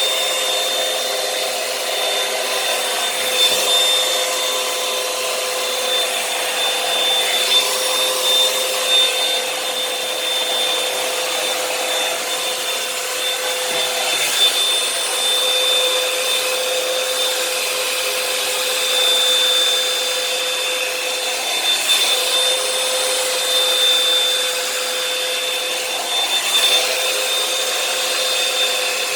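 Revlon One-Step hair dryer brush blowing steadily, a rush of air with a steady motor whine on top.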